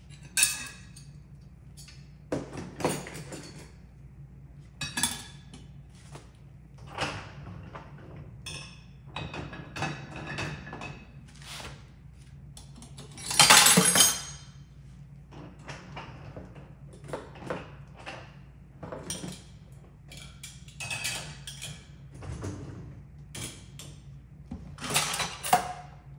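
Dishes and cutlery clinking and knocking as they are handled and set into dishwasher racks, with one longer, louder rattle about halfway through over a steady low hum.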